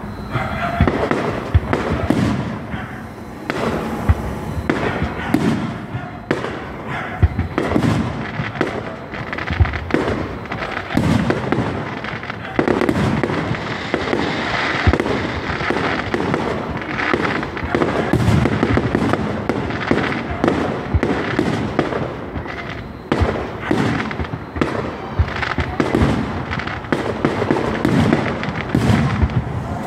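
Aerial fireworks shells bursting in a continuous display: many sharp bangs and pops at irregular intervals, one after another, over a constant noisy background.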